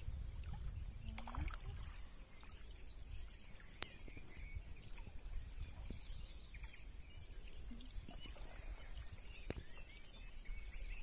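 Faint paddle strokes and water lapping around an inflatable stand-up paddleboard, over a steady low rumble of wind on the microphone.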